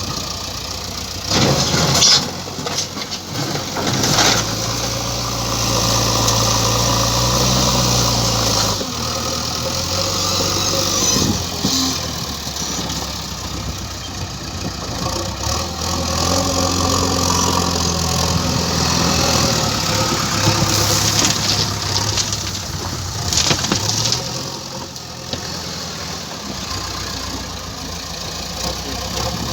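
JCB excavator's diesel engine running and revving up and down as it works its boom and bucket. Several loud clattering bangs come through, the first about two seconds in.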